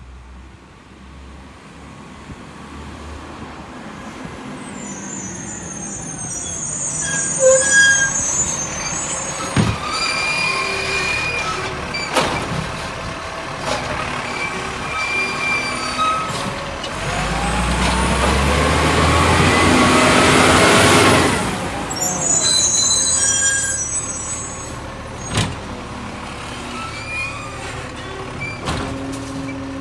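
Side-loader garbage truck approaching and stopping at a kerbside green-waste wheelie bin, its air brakes hissing, then the engine running up hard while the hydraulic arm lifts and tips the bin, with the bin knocking against the arm and hopper. The air brakes hiss again as the truck pulls away.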